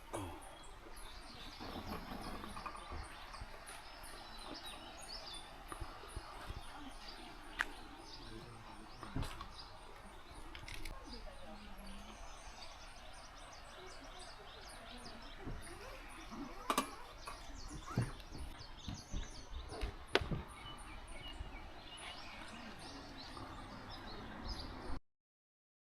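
Quiet outdoor ambience with small birds chirping high and repeatedly, and a few sharp clicks and knocks scattered through it. Cuts off suddenly near the end.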